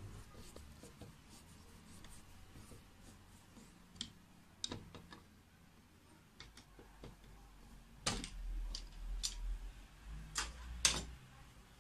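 A few light clicks and taps from hands handling the plastic window handle parts at the frame's mounting holes, with low handling rumble in the second half.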